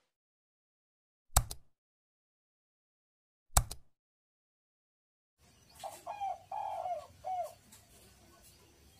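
Two sharp clicks about two seconds apart, then a spotted dove cooing a short phrase of several low, rounded notes over faint background hiss.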